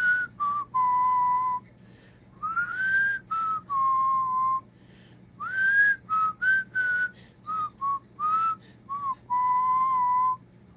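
A grey parrot whistling: three phrases of clear whistled notes, each opening with a rising glide and ending on a longer held note, with a run of short notes in the last phrase.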